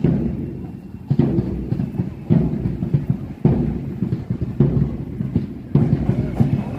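Marching-band bass drum beating a slow, steady pace, one heavy beat a little more than once a second, each dying away. A faint high held note comes in near the end.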